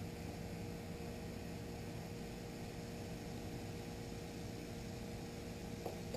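Steady low hum and hiss of background room noise, with one faint click near the end as a carburetor is fitted by hand.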